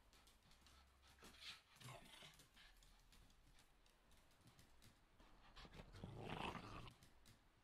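A small dog making quiet vocal noises close up: two soft ones a little over a second in, and a louder one lasting under a second about six seconds in.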